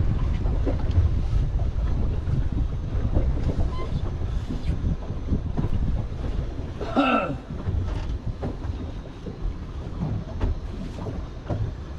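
Wind rumbling on the microphone aboard a small boat moving slowly at sea, a steady low rumble throughout. A brief vocal sound about seven seconds in.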